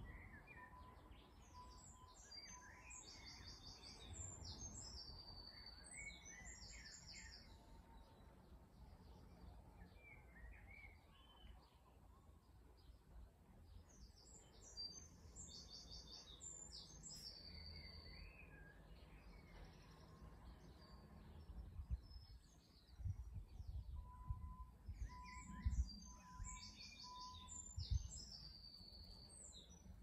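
Garden songbird singing three bouts of high, rapid trilling song, each a few seconds long and about ten seconds apart, over faint background noise. A few low bumps near the end.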